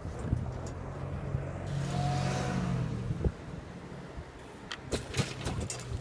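A car driving past, its engine and tyre noise swelling and fading about two seconds in over a low steady hum, with a few sharp knocks near the end.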